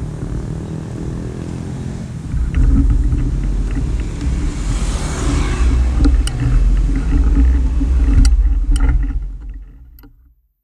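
Motorcycle engine idling, a low steady rumble that gets louder about two seconds in. There is a rush of noise around the middle and a few sharp clicks, and the sound fades out near the end.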